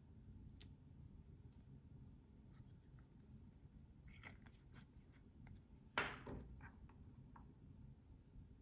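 Quiet handling of a watch and its packaging: faint crinkles and clicks as a thin plastic protective film is peeled off the watch crystal and the box insert is handled. About six seconds in, a single sharp knock as the watch box is set down on the wooden table.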